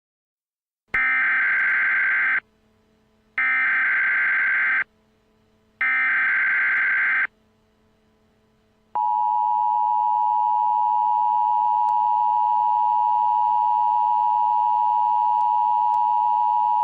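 Emergency Alert System tones: three short bursts of SAME header data, each about a second and a half long with short gaps between, then the steady two-tone EAS attention signal, held for about eight seconds.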